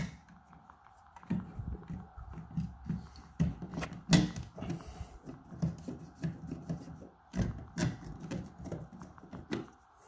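Mounting screw being driven into the wall by hand with a Phillips screwdriver, through the plate of a power point. Repeated scraping turns as the screw bites, starting about a second in and stopping just before the end.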